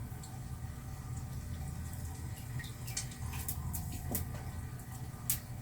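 Scattered soft clicks and taps from hands working modelling clay, over a low steady hum; the sharpest tap comes near the end.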